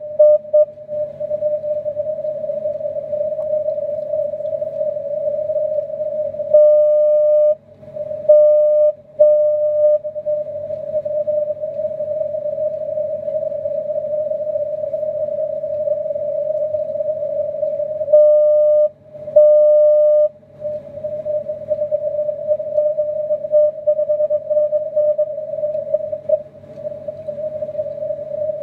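Morse code (CW) signals on the 80-metre band heard through an HF transceiver's receiver with a narrow 600 Hz filter: a near-continuous tone over band noise. A few louder, cleaner long tones break in about seven seconds in and again near nineteen seconds.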